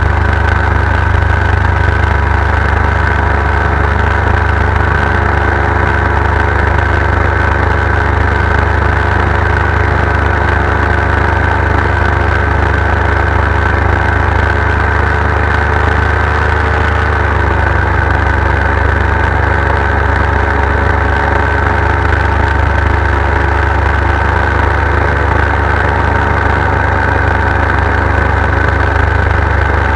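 Powered-paraglider (paramotor) engine and propeller running steadily in flight, heard close up from the pilot's harness. Its pitch drops slightly a little past halfway through.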